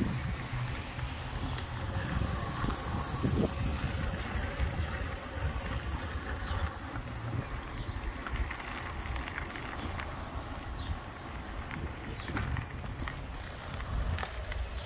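A 1946 Shelby bicycle being ridden on pavement: tyres rolling and wind buffeting the microphone in a steady rumble, with a few light ticks and rattles from the bike.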